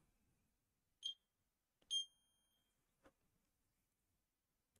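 Multimeter in diode-test mode giving two short high beeps about a second apart, with a faint tick of the probes, as the probes touch a desoldered 1N4007 diode. The meter reads zero: the diode is shorted.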